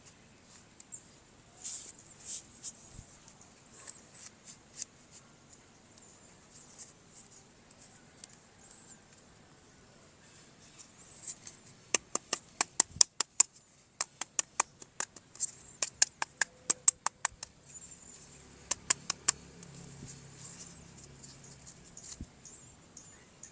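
Plastic toy parts being handled, with several quick runs of sharp clicks, about eight a second, in the second half.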